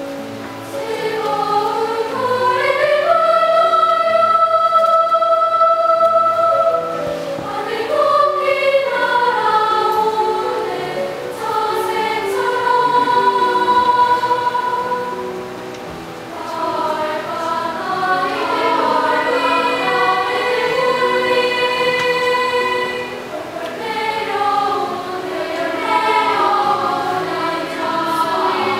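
Children's choir singing in harmony, with several long held notes.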